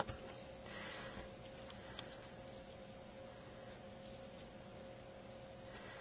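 Faint rubbing and rustling of punched card pieces being handled and pressed down by fingers on a paper-covered work surface, with one small tick about two seconds in. A faint steady hum runs underneath.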